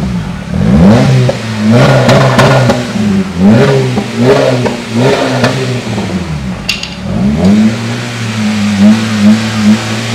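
Honda City i-VTEC's 1.5-litre four-cylinder petrol engine being revved in repeated quick blips with its rear muffler removed, then settling into a steady idle about three-quarters through. One sharp click comes during the last blips.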